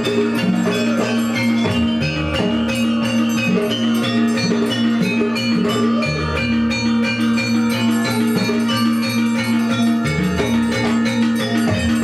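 Dance accompaniment music: ringing metal-key percussion and drums playing over a steady held tone, with a regular beat.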